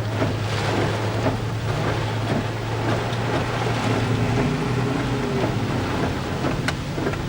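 An engine drones steadily under a rushing noise of wind and rain, with a faint pitched tone coming in briefly around the middle.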